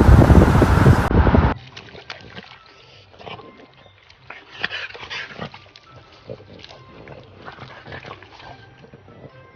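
Loud rushing noise that cuts off abruptly about a second and a half in, followed by faint animal sounds with scattered small clicks and a few short high calls.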